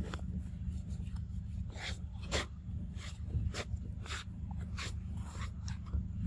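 A young macaque eating ripe mango, with a dozen or so short, wet, irregular smacks and slurps from its biting and chewing, over a steady low hum.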